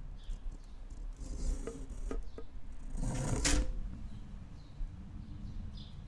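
Tropical forest ambience: faint high chirps repeating about once a second over a low, steady rumble. A few sharp clicks come around two seconds in, and just after three seconds a louder rush of noise lasts about half a second.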